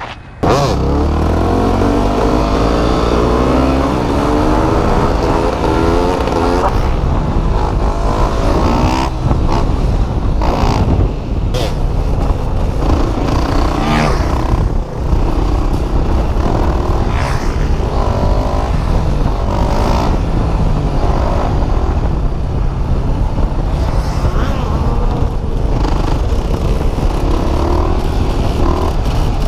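Motorcycle engine accelerating hard, its pitch climbing steeply over the first few seconds, then running at high revs that rise and fall. Later the sound comes from a Yamaha WR 250R's single-cylinder engine, ridden on its back wheel.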